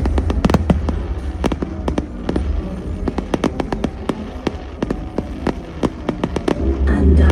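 Fireworks bursting in rapid, irregular succession: many sharp cracks and bangs, denser in the first second and again near the end.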